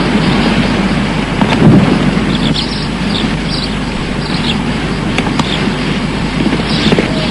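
Small birds chirping a few short calls in the middle and near the end. Underneath is a steady rushing noise and a constant low hum.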